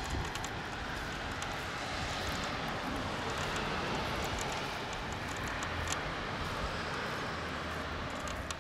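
Bicycle riding outdoors: a steady rushing of wind and rolling tyres, with faint light ticks scattered through.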